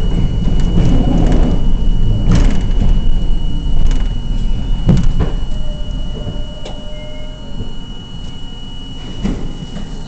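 R42 subway car riding the rails, heard from inside: a steady low rumble with a handful of sharp clicks from the wheels and track, growing quieter through the second half.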